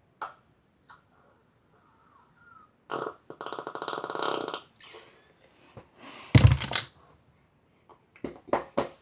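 Plastic squeeze bottle of salad cream spluttering as it is squeezed: a rattling, fart-like sputter of sauce and air for about a second and a half, then a louder, sharper splutter and a few short bursts near the end.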